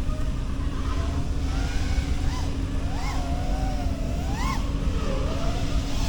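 FPV drone motors whining, their pitch wavering and briefly rising several times as the throttle changes, over a steady low rumble.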